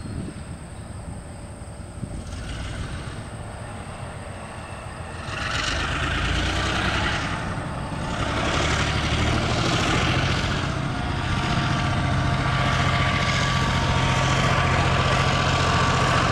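Diesel locomotive working in a rail yard: a steady engine hum that grows louder about five seconds in and again a few seconds later, then holds. A faint high steady tone runs through the last seconds.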